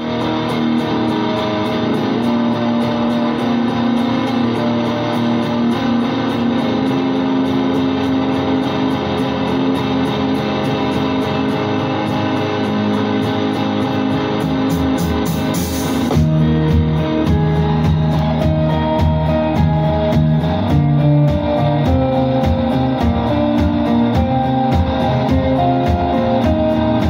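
Live band playing an instrumental passage led by electric guitars over a bass guitar. About sixteen seconds in it grows fuller and louder, with a heavier bass line and drums.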